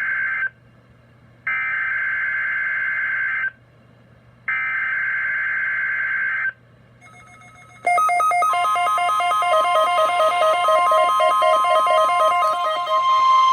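Emergency Alert System weekly test on weather radio. First come SAME digital header bursts, a harsh buzzing data tone: the end of one burst and then two more, each about two seconds long with a second's pause between. From about eight seconds in, the warning alarm sounds: a steady high tone near 1 kHz under a rapid, stepping pattern of beeping tones.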